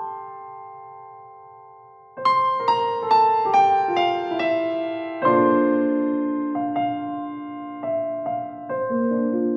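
Background piano music: a note fades out, then about two seconds in a run of notes steps down in pitch and gives way to slower chords.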